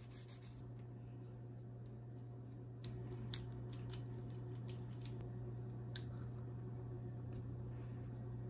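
Faint food-handling sounds as a baked potato is dressed: soft squishing of the potato flesh and a few light clicks and taps of a spoon at a tub of sour cream, over a steady low hum.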